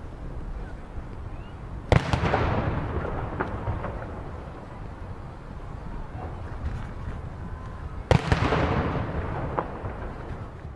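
Ceremonial artillery salute from field guns: two shots, one about two seconds in and one about eight seconds in, each a sharp boom followed by a long rolling echo that dies away over a couple of seconds.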